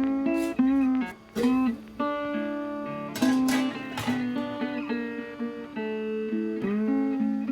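Background music: acoustic guitar playing a melody with plucked notes and occasional strummed chords.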